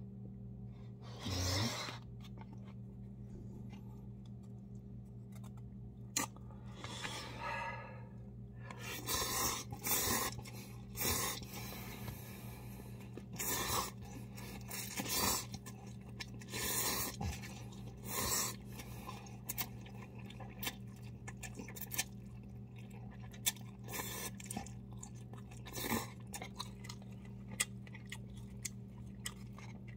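A man slurping and chewing instant cup noodles, in repeated noisy slurps of about a second each between quieter chewing, over a steady low hum.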